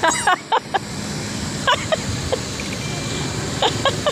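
Busy street ambience: a steady traffic hum, with a few short voice sounds at the start, about two seconds in, and near the end.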